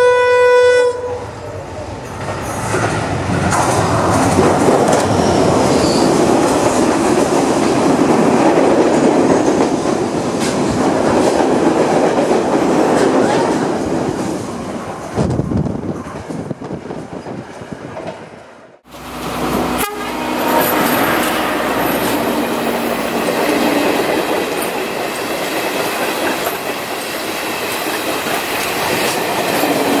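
A diesel locomotive's horn gives one short blast, then a train runs past close by, its wheels clattering over the rail joints. About nineteen seconds in the sound cuts out briefly and another train is heard running past.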